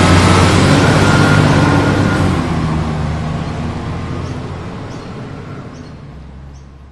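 Dubbed-in heavy truck engine sound running steadily, fading out over the second half.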